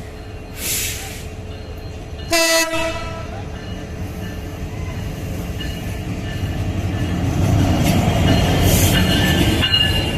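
A short blast of a diesel locomotive's horn about two seconds in, after a brief hiss near the start. Then a passenger train's rumble builds, with wheels squealing on the rails near the end.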